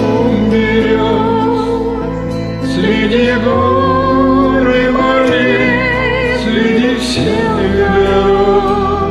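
Music: a ballad with a wavering, vibrato-laden sung melody over a sustained backing track.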